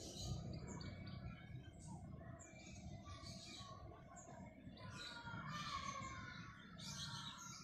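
Faint birds chirping over and over in short high calls, over a steady low background rumble.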